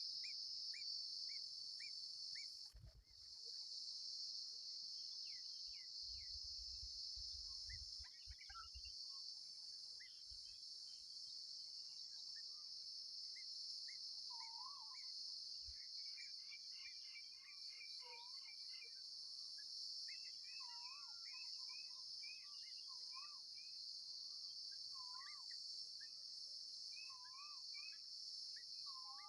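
Insects droning steadily at a high pitch, with many short bird chirps and wavering whistled calls over them. There are a few soft low bumps about six to nine seconds in.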